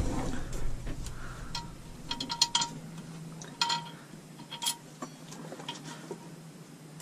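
Small metal parts clinking and tapping as a bolt, gasket and the new water pump are handled and set against the front of the engine. There are a few short clusters of clinks, about two and a half, three and a half and four and a half seconds in.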